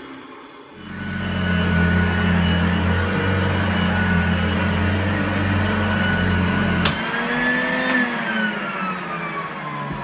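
Hoover Junior U1012 upright vacuum cleaner, with its metal fan, running on carpet with a steady whine and a low drone from the brush drive. About seven seconds in the drive belt snaps with a sharp crack: the low drone stops and the motor's whine rises as the load comes off. About a second later a click follows and the whine winds steadily down.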